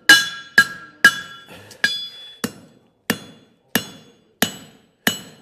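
Farrier's hammer striking the heel of a steel horseshoe on an anvil, drawing it out into a jar calk: steady blows about two a second, slowing slightly toward the end, each with a bright metallic ring.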